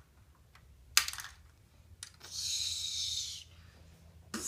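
Plastic Lego pieces: one sharp click about a second in, then a soft hissing rustle lasting about a second.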